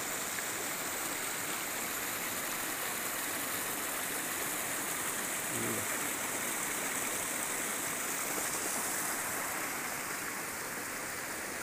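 Shallow rocky stream running low over and between boulders: a steady rush of water with small cascades splashing among the rocks.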